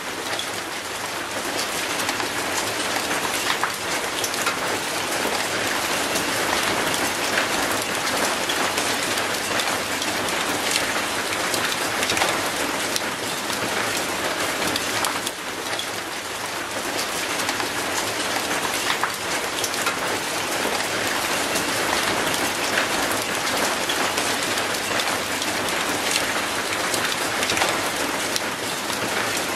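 Steady rain falling on wet concrete and an old rusty metal gate: a dense, even hiss made of countless small drop impacts.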